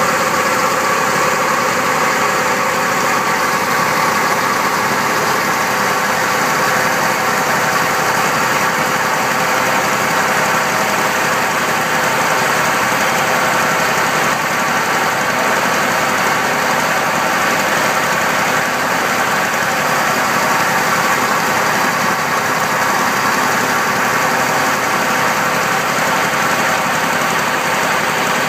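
Engine driving a large irrigation water pump, running steadily, with water gushing from the pump's outlet pipe.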